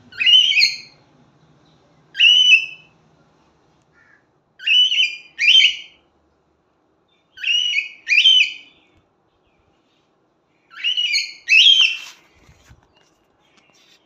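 Cockatiel calling: eight short, loud, upward-sweeping whistled calls, one at the start, one about two seconds in, then three closely spaced pairs.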